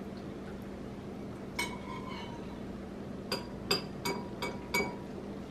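Metal spoons clinking against soup bowls during eating: one clink about a second and a half in, then five quick clinks over the next second and a half around the middle, each ringing briefly.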